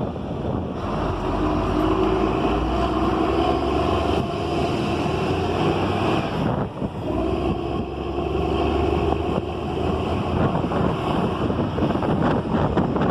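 Isuzu LV150 coach's diesel engine running under a Marcopolo 1200 G7 bus body, its pitch rising and falling twice.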